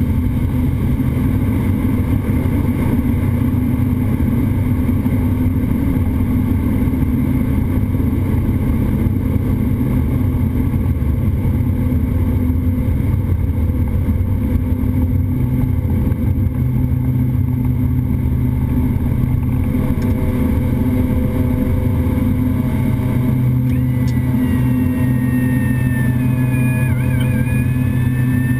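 Twin Pratt & Whitney PT6A-135A turboprops of a Beechcraft King Air C90GTx at takeoff power, heard inside the cockpit: a loud, steady propeller drone through the takeoff roll and climb-out. A thin, wavering higher whine joins near the end.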